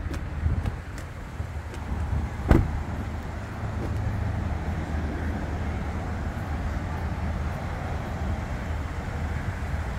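A car door on a 2023 GMC Acadia AT4 shuts once with a sharp thump about two and a half seconds in, over a steady outdoor traffic rumble.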